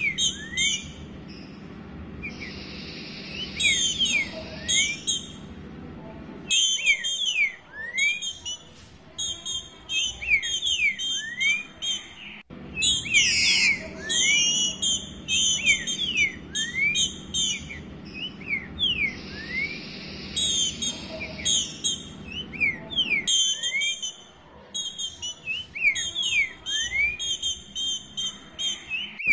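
Female green-winged saltator (trinca-ferro) calling in repeated bursts of rapid high chips and short upward-slurred whistles, twice with a longer hissing note: the call of a female soliciting a male to mate.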